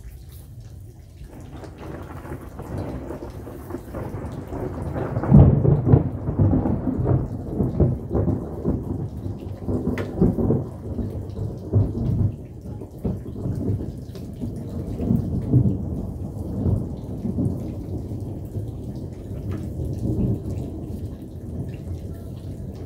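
A long rolling rumble of thunder over rain: it builds from about a second in, is loudest around five to six seconds, then rolls on in repeated swells.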